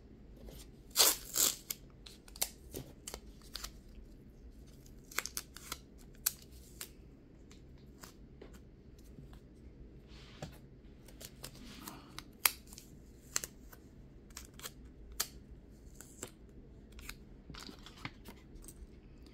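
Scattered short clicks and rustles of paper cards and clear tape being handled and pressed down, with the loudest rustles about a second in.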